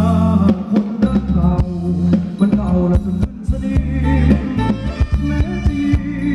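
Live band playing Thai ramwong dance music, with heavy bass and a steady drum beat.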